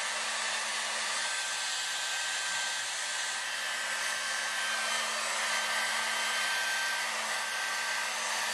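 Revlon handheld hair dryer running steadily, blowing a rushing hiss of air with a thin steady whine and a low motor hum, drying a wet dog's coat.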